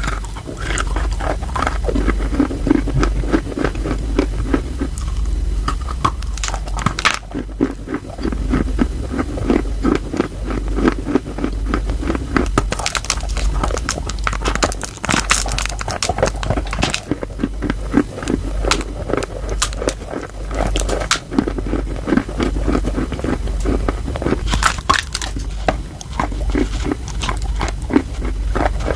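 Wet chalk bitten and chewed close to the microphone: a dense, irregular run of crunches and crackles, over a steady low hum.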